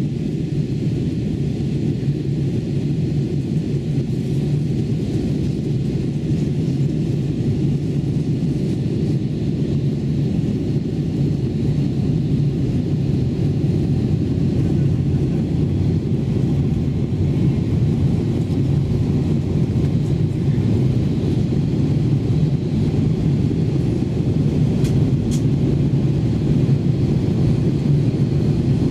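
Steady low rumble of engine and airflow noise inside the cabin of an Airbus A321-200 descending toward landing.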